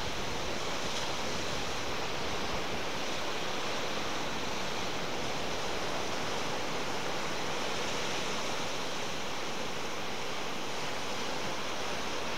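Strong wind buffeting the microphone over the steady wash of choppy lake waves breaking on the shore.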